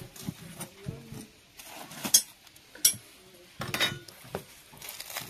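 A metal rod poking and scraping through the ash inside a clay mud stove, digging in the embers, with a few sharp clinks and knocks about two to four seconds in.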